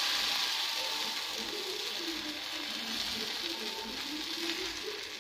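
Rava (semolina) uttapam batter sizzling on a hot greased dosa pan as a ladle spreads it round: a steady hiss that eases slightly toward the end. Faint wavering tones run underneath.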